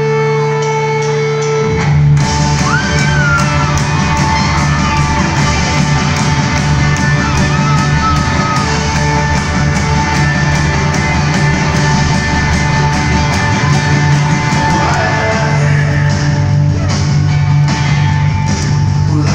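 Rock band playing live in an arena, heard on a phone from the audience: held chords at first, then the full band with drums comes in about two seconds in, with a voice singing over it.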